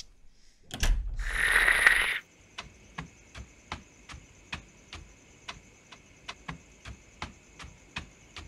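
Quick footsteps on a hard floor, about three to four a second, after a loud rustling burst about a second in. A faint steady high whine runs behind them.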